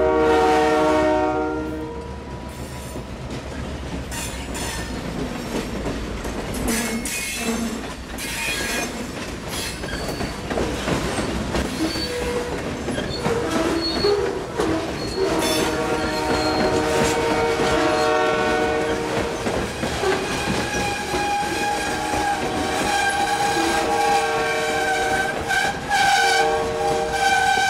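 Diesel freight train passing a road crossing: the locomotive's air horn sounds a chord that ends about two seconds in, then the cars roll by with wheels clicking over rail joints. In the second half a steady high-pitched wheel squeal rises over the rolling noise and carries on to the end.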